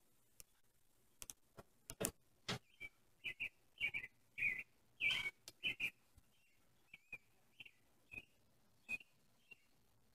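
Short, high chirping calls repeated many times, thickest in the first half, with sharp clicks and knocks among them.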